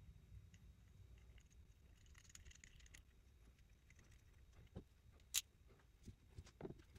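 Near silence with faint handling of small fuel pressure regulator parts: light ticks and rustling, one sharp click a little past five seconds in, and a few soft knocks near the end.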